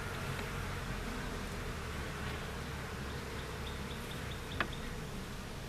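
Honeybees buzzing steadily around an open hive during a frame inspection, with one short click about four and a half seconds in.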